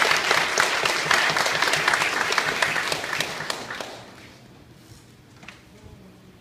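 Audience applauding, a dense patter of many hands clapping that dies away after about four seconds, leaving the hall quiet.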